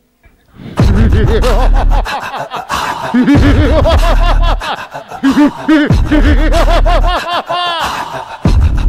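A loud, drawn-out evil laugh, a long run of 'ha' pulses starting about a second in and climbing higher in pitch near the end, over repeated heavy bass booms.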